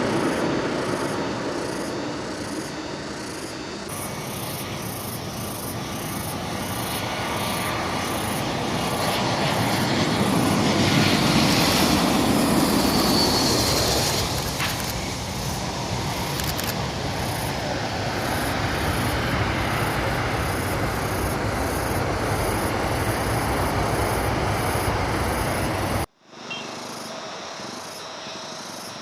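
Airbus A320 jet engines at takeoff power, a loud continuous rush that swells to its peak in the middle with a high whine and then eases a little. A few seconds before the end it cuts off abruptly to a much quieter outdoor background.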